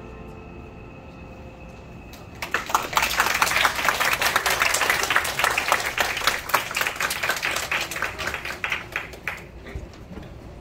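The last held note of a violin and cello fades out. A small audience then breaks into applause about two and a half seconds in, clapping steadily before it dies down near the end.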